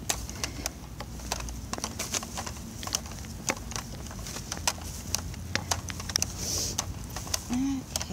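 Footsteps with many irregular light clicks and taps, a few per second. A short low tone sounds near the end.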